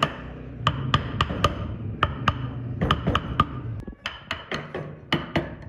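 Hand chisel cutting into a wooden axe handle, giving a series of sharp, irregular clicks as wood chips split off, with background music underneath.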